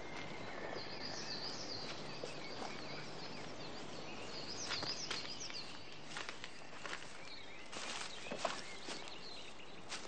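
Birds chirping in woodland over a steady background hiss, with footsteps swishing through long grass at an uneven pace from about five seconds in.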